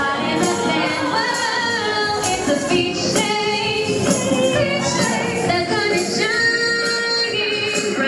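A live band playing a pop song, with women singing the vocals over keyboard and percussion.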